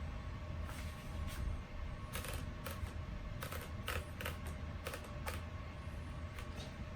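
Paper being straightened in a 1947 Underwood desktop typewriter, the platen and paper handled by hand: faint, irregular small clicks and rustles.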